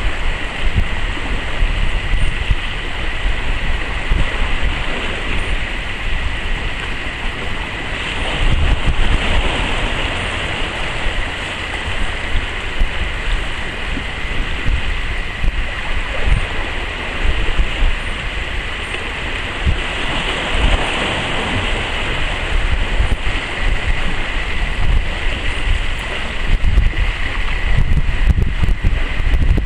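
Wind buffeting the microphone in uneven gusts over the steady wash of sea surf on rocks.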